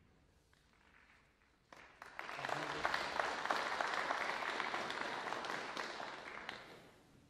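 Snooker audience applauding a century break. A sharp click comes just before the clapping starts, about two seconds in, and the applause dies away near the end.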